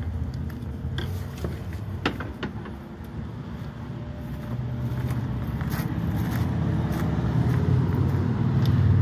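A few footsteps on a gravel path over a steady low rumble that grows louder from about halfway.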